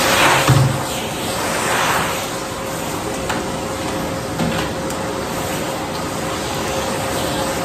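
Canister vacuum cleaner running steadily, a constant motor whine under the rush of suction as the nozzle is worked over the floor, swelling briefly a couple of times near the start.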